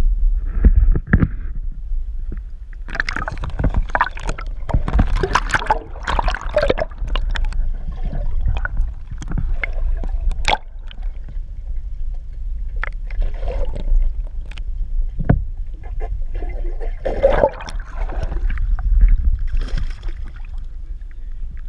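Water splashing and sloshing as a hooked largemouth bass thrashes at the surface beside a boat's hull while it is played in and lipped by hand. The splashes come in irregular bursts, heaviest a few seconds in and again near the end, over a steady low rumble.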